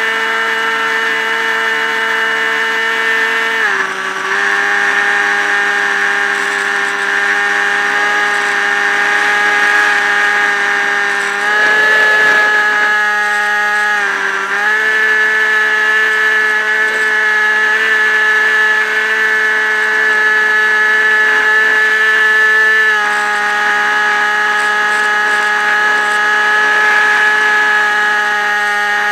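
Electric motor and propeller of a Multiplex EasyStar RC plane, heard up close from the plane itself: a steady, loud buzzing whine with several tones. Its pitch shifts up or down a little several times.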